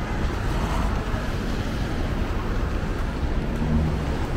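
Steady city street noise: a low traffic rumble with a wash of noise, and a faint vehicle engine hum near the end.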